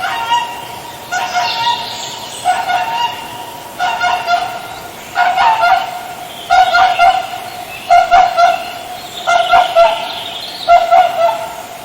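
Swan calling with repeated nasal honks, about nine calls each a quick cluster of short notes, spaced roughly a second and a bit apart.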